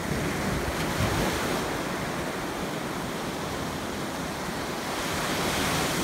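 Sea surf breaking and washing up a sandy beach, a steady wash of noise that swells as waves come in, with wind rumbling on the microphone.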